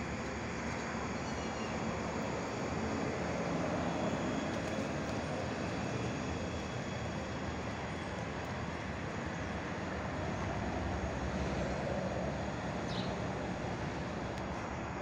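Steady, even machine rumble with no breaks.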